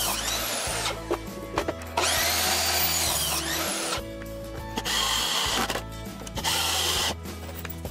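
Miter saw cutting through a wooden board twice, each cut ending in a falling whine as the blade spins down; then a cordless drill driving screws in two short runs.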